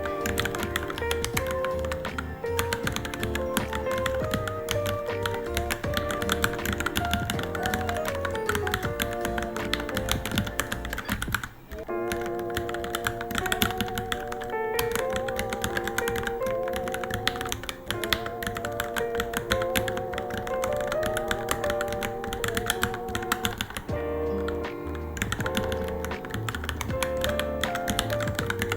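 Rapid, continuous typing on a Varmilo Minilo mechanical keyboard, key clicks running without pause, under background music with a melody.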